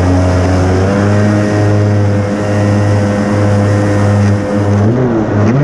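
Kawasaki JS300 stand-up jet ski's two-stroke engine running at a steady cruising speed. Near the end the engine note drops as the throttle eases off, then starts to pick up again.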